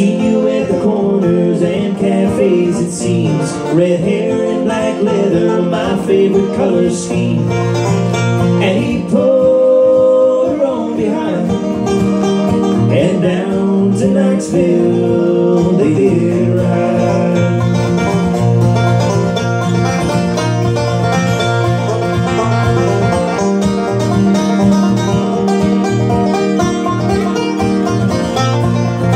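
An acoustic guitar and a banjo playing together live in a fast country/bluegrass style, with no break.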